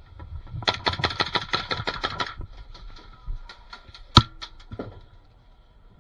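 Airsoft gunfire: a fast burst of about ten shots a second for over a second, then scattered single shots and BB impacts, with one loud sharp crack about four seconds in.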